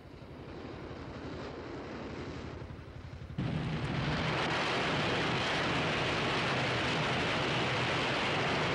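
Disaster sound effect on a 1970s film soundtrack: a moderate low rumble that jumps suddenly, about three and a half seconds in, to a much louder, dense, steady rumbling roar like a storm or eruption.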